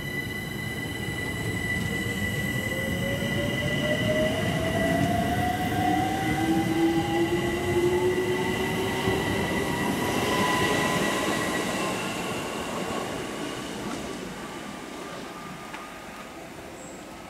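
London Overground Class 378 electric multiple unit accelerating out of the station. Its traction motors give a whine that rises in pitch over the wheel and rail rumble, which grows louder and then fades as the train pulls away.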